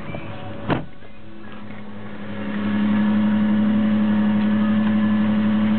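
Ford Ranger pickup's engine idling steadily, its hum growing louder after about two and a half seconds, with a single sharp knock about a second in.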